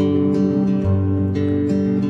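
Instrumental passage of a slow song: acoustic guitar chords strummed over sustained low notes, with no singing.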